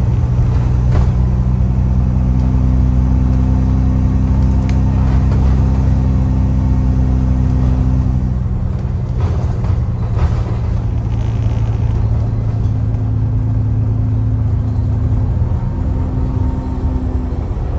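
Alexander Dennis Trident/Enviro400 double-decker bus's diesel engine running steadily under way, heard from inside the bus, with a blown exhaust. The deepest part of the drone falls away about eight seconds in, while the engine note carries on.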